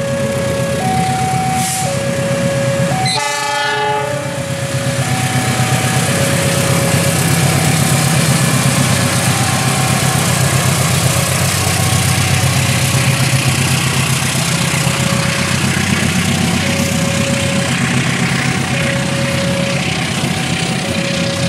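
A level-crossing alarm rings in two alternating tones throughout, and a KAI CC206 diesel-electric locomotive gives a short horn blast about three seconds in. It then rumbles past with its diesel engine running, followed by the steady rolling noise of the passenger coaches on the rails.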